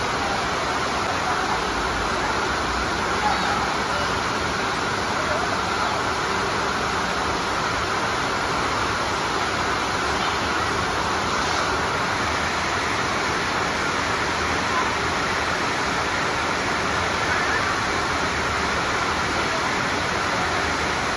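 Steady rushing noise, with faint shouts of small children at play.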